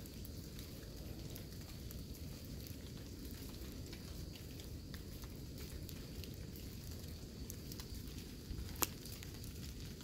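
Light rain pattering: scattered faint drops ticking over a low steady rumble, with one sharper tick near the end.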